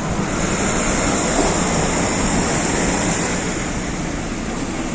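Steady city street noise, with road traffic going by.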